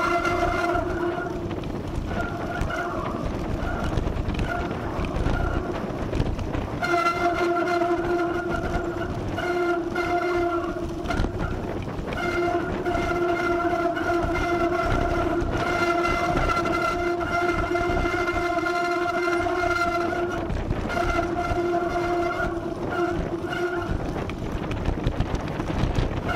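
Mountain bike moving at speed, heard from a camera on the rider: wind rumbling over the microphone, with a steady, high buzz from the bike that cuts out and comes back several times.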